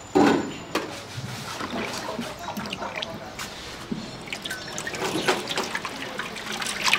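Cooking oil glugging and trickling as it is poured from a large metal tin into a frying cauldron, with a loud knock right at the start.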